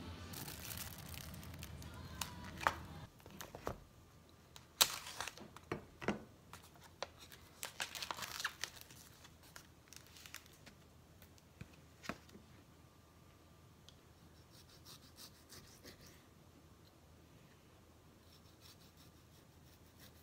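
Plastic cling film crinkling and tearing as it is peeled off a foam food tray: a run of sharp crackles and rustles over several seconds, then fainter handling ticks.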